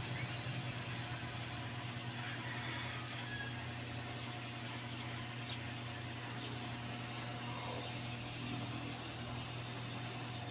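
Steady hiss of compressed air, strongest high up, over a low steady machine hum.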